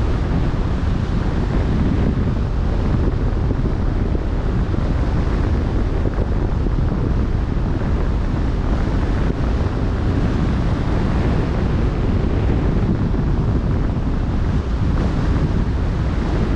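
Wind blowing across the microphone over the wash of open-sea waves. It is a steady, loud rushing noise heaviest in the low end, with no breaks or distinct events.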